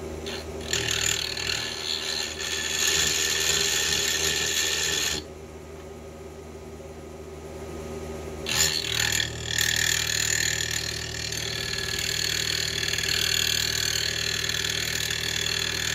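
A rotating shaft rig hums steadily. A loud, hissing scrape comes in about a second in, cuts off suddenly around five seconds, and starts again near nine seconds. It fits a rotor rubbing against its stationary parts.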